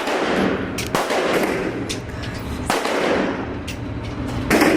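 Gunshots at a shooting range: four sharp reports over a few seconds, irregularly spaced, each trailing off in a long echo.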